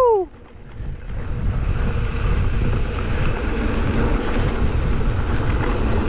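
Steady wind rushing over the microphone as a mountain bike descends a dirt trail at speed, with the tail of a falling "woo" shout at the very start.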